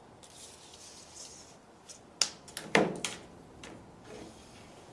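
Steel tape measure being pulled out with a soft hiss, then several sharp clicks and knocks as the blade and its case are laid on the workbench, one knock near the middle the loudest.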